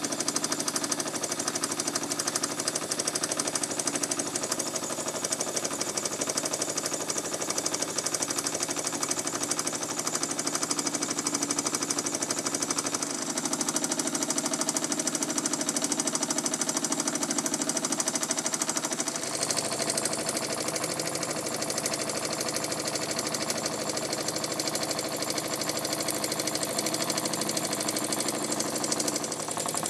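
Scorpion toy steam engine running steadily under steam from its vertical brass boiler: a rapid, even mechanical knocking from the little engine. The tone shifts slightly a little past the middle.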